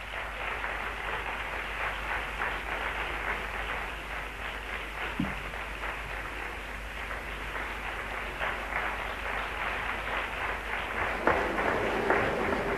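Audience applauding, a steady patter of many hands clapping that grows a little louder near the end.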